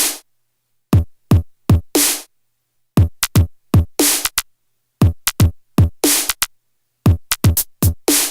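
Electronic drum-machine beat from a 16-step sequencer: kicks that drop in pitch, snare hits and hi-hats in a loop about two seconds long with short pauses between repeats. The pattern grows busier with more hits near the end.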